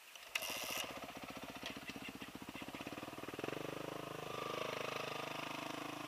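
Dirt bike engine firing up about a third of a second in and running at a fast, even idle, then revving up and getting louder from about three seconds in.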